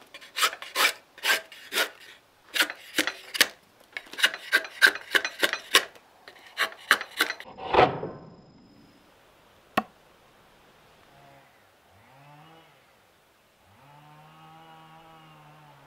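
Restored antique drawknife shaving a wooden board: a fast run of short scraping strokes as the steel blade takes shavings off the wood, several a second, ending with one longer stroke about eight seconds in.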